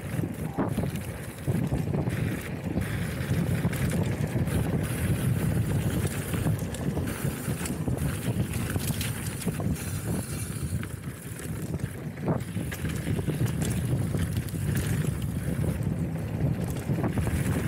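Wind rushing over the microphone of a camera riding along on a hardtail mountain bike in motion. A few sharp knocks come through, near the start, about twelve seconds in and near the end.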